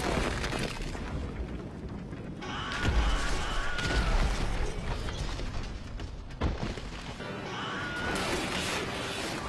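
Film battle soundtrack: a deep explosion boom about three seconds in as a stone fortress wall is blown apart, with crashing debris over orchestral score, and a sharp single impact a few seconds later.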